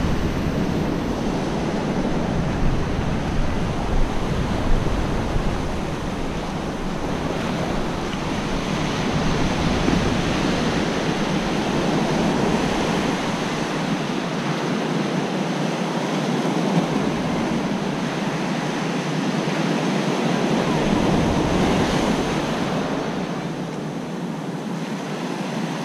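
Surf breaking and washing up a sandy beach in a steady wash that swells and eases. Wind buffets the microphone at times.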